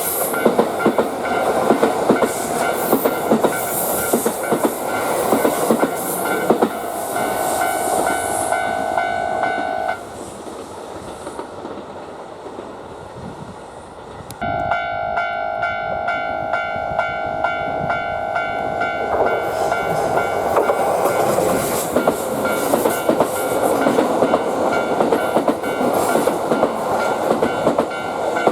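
A train running over a level crossing, its wheels clattering on the rails, while the crossing warning bell rings steadily. About ten seconds in the sound drops suddenly to a quieter rumble without the bell, and the bell and train noise come back abruptly a few seconds later.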